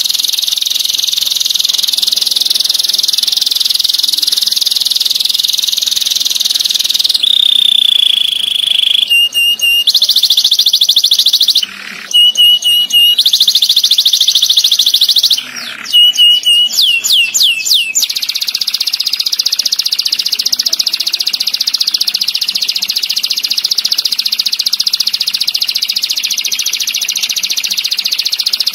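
Domestic canary singing a long, very fast rolling trill, high-pitched and nearly unbroken. About seven seconds in there is one held whistled note, and around sixteen seconds a quick run of down-sweeping notes; the song breaks off briefly twice in between.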